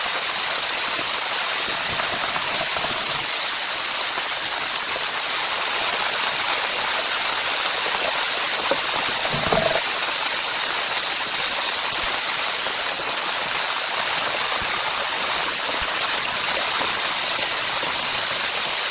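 Steady heavy rain, a dense even hiss, with one short dull knock about halfway through.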